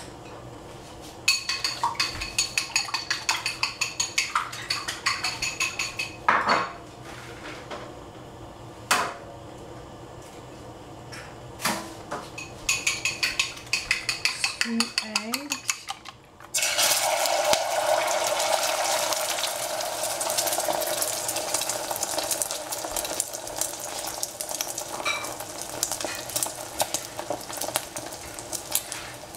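Eggs being beaten with a utensil in a bowl: two runs of rapid, ringing clinks with a few single knocks between. About sixteen seconds in, a sudden loud sizzle starts as the beaten egg goes into the hot cooking oil in a stainless steel saucepan, and keeps frying, slowly easing.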